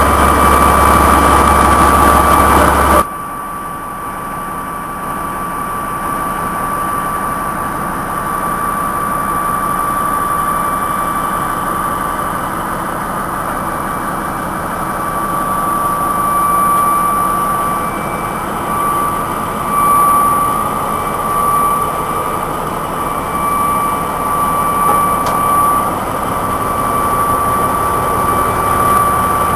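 Morbark 1200 tub grinder running steadily: heavy machine noise with a constant high tone over it. About three seconds in the sound drops abruptly in level, then carries on steady.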